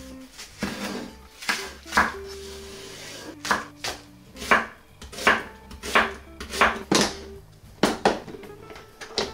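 Kitchen knife chopping green onion and onion on a wooden cutting board: a dozen or so separate cuts, each a sharp knock of the blade on the board, spaced about half a second to a second apart.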